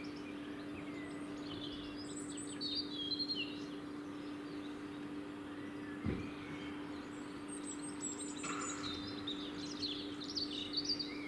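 Small birds chirping and trilling in two spells, over a steady low hum, with a single short knock about six seconds in.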